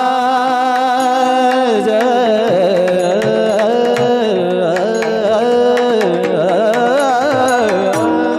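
Male kirtan singer drawing out one long, high sung note with no words, held steady for about two seconds and then ornamented with quick rising and falling turns of pitch, over a pakhawaj drum accompaniment.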